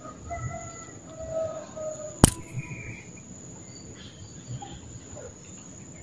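Steady high-pitched insect drone of crickets or cicadas, with a few faint bird calls in the first two seconds. A single sharp click a little over two seconds in is the loudest sound.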